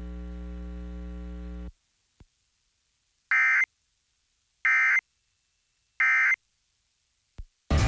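Emergency Alert System SAME end-of-message code: three short identical bursts of digital data tones about a second apart, marking the end of the alert. Before them, a steady electrical hum on the broadcast audio stops abruptly, leaving silence.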